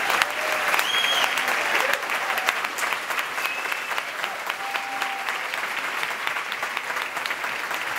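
Concert audience applauding: a dense, steady patter of many hands clapping, easing slightly after about two seconds, with a few brief calls over it.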